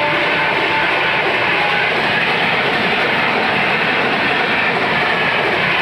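Train passing close by: a loud, steady rumble and rattle of rolling wagons.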